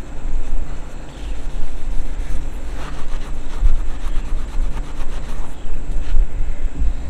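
A scouring pad scrubbing the painted base of a barber's chair, with faint scratchy strokes in the middle. A low, gusting rumble of wind on the microphone is the loudest sound throughout.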